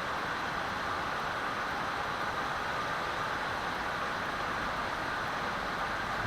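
Steady, unbroken hiss of static with no tone or rhythm in it.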